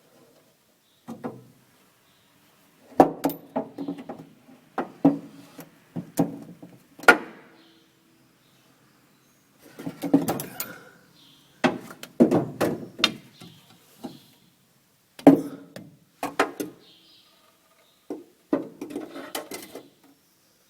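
Irregular metal knocks, clicks and scrapes in short clusters, some with a brief ring, as the greased VW Type 2 gear shift rod and its bushes are worked back into the shift tube.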